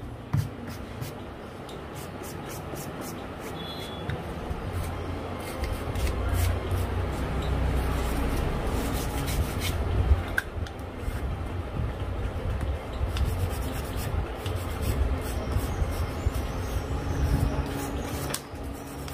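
Toothbrush bristles scrubbing back and forth over the bare frame of a Redmi 8 phone to brush away dust: a steady rubbing rasp that gets louder about six seconds in, with a few light clicks.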